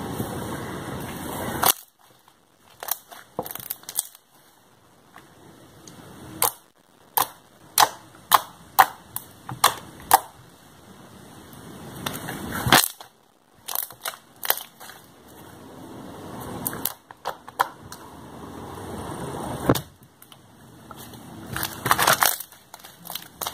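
Hand-kneaded slime being stretched, folded and pressed, giving many sharp pops and clicking snaps in irregular runs with short pauses between them. A steady rushing noise fills the first second or two.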